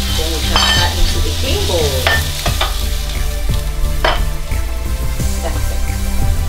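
Chicken pieces sizzling in a hot frying pan, with a wooden spoon scraping and knocking against the pan several times as the chicken is stirred and then tipped out into a bowl.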